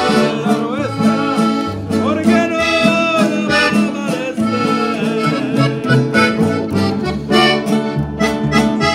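Live acoustic band playing close by: a button accordion carrying the melody over strummed acoustic guitars and a plucked upright double bass, with a man singing.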